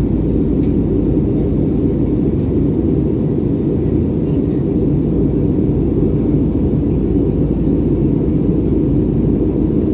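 Steady low cabin noise of an Airbus A320neo in flight: engine and airflow rumble heard from inside the cabin, constant throughout with most of its weight in the low range.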